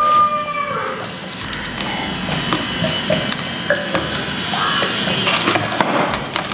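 Close-up eating sounds: crisp fried chicken being bitten and pulled apart, its coating crackling in a dense run of small clicks.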